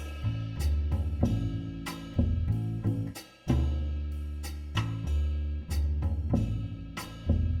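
Background music with drums, bass and guitar, a steady beat with deep bass notes changing about once a second.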